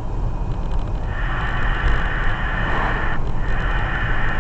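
Steady low road and engine rumble heard from inside a moving vehicle at highway speed. A hiss joins it about a second in and breaks off briefly near three seconds.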